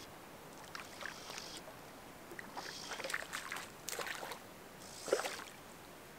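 A hooked fish splashing and thrashing at the lake surface close to shore as it is played on a fly rod, in several short bouts of splashing.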